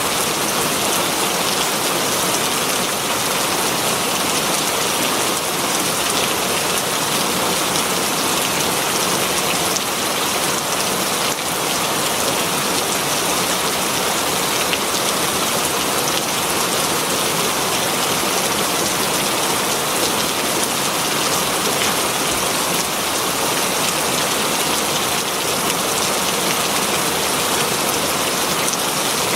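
Very heavy rain falling steadily on leaves: a dense, even hiss of many drops with fine crackle, unchanging throughout.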